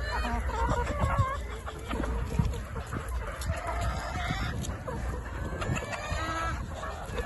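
A flock of domestic chickens clucking, with many short calls overlapping, over a steady low rumble.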